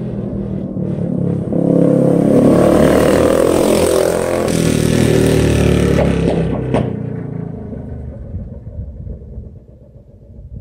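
Coleman CT100U mini bike's Hemi 212 single-cylinder engine with an aftermarket pipe running hard as it comes past, then a few sharp pops, like a .22 going off, as the throttle is let off about two-thirds of the way in. These are backfires on deceleration, which the rider puts down to the pipe's baffle. The engine note then fades away.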